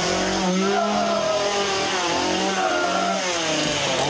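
Chainsaw engine revving, its pitch rising and falling again and again as the throttle is worked.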